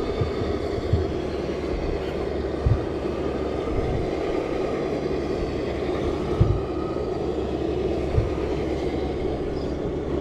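Traxxas TRX-4 scale RC crawler's electric motor and geared drivetrain whirring steadily as it creeps over wooden planks, with a few dull low thumps as it moves across the boards.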